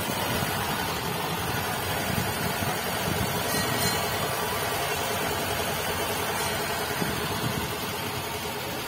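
Small tourist road train's engine running steadily as it drives along, heard from an open carriage behind the locomotive.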